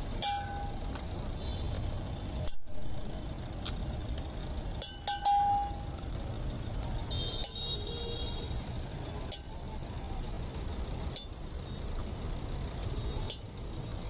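Metal spoon clinking against steel tins as puffed rice and spices are scooped into a steel mixing tumbler: scattered sharp clinks that ring briefly, the loudest about five seconds in, over a steady rumble of road traffic.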